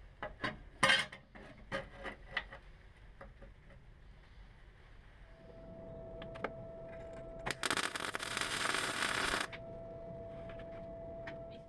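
Light metal clicks and knocks as a steel reinforcing bracket is set into a car's boot floor, then a steady hum and, a little past halfway, about two seconds of welding arc crackle as the bracket is welded in.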